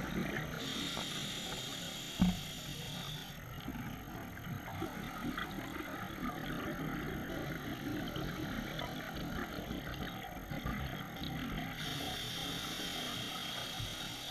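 Scuba regulator breathing underwater: a hissing inhalation through the regulator near the start and again near the end, with a long bubbling, rumbling exhalation between. A single short knock about two seconds in.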